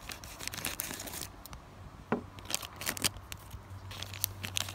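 A My Little Pony blind bag's plastic foil wrapper crinkling and tearing as it is pulled open by hand, in a string of irregular sharp crackles.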